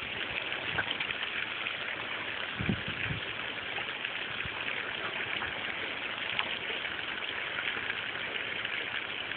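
Water spraying steadily from an open garden hose onto wet mulch, a constant hiss, with a couple of soft low thumps a little under three seconds in.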